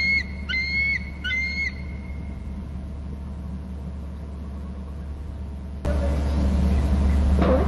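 Bald eagle calling, with the last three high, thin piping notes of a series coming about one every two-thirds of a second in the first second and a half. A steady low rumble runs underneath and grows louder about six seconds in.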